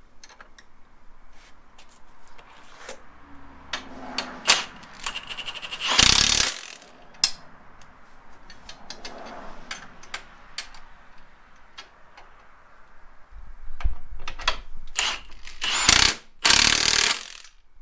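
Cordless impact wrench driving bolts in bursts, hammering as each one tightens: one run about four to six seconds in and another from about thirteen to seventeen seconds. Between the runs come scattered clicks and clinks of bolts and hand tools.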